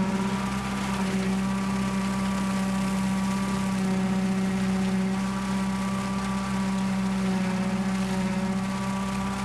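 Kubota tractor's diesel engine and rear rotary mower running steadily under load while cutting tall grass, a continuous even drone with no breaks.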